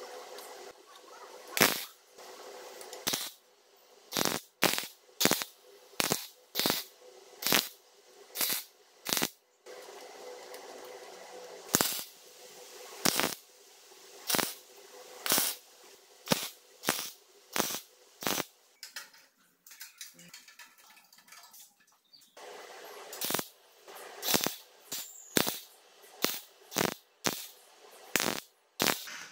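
Electric arc welder making a rapid series of short tack welds on steel rods, each tack a brief sharp crackle, about thirty in all with a pause near the middle. A steady hum runs between the tacks.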